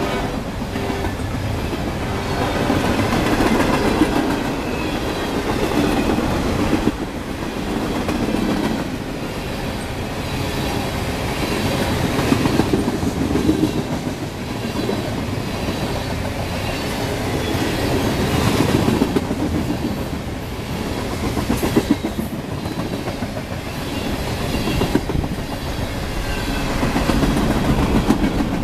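Freight cars rolling past at speed: a steady rumble of steel wheels on the rails with repeated clickety-clack over the rail joints. It swells and fades as each car goes by.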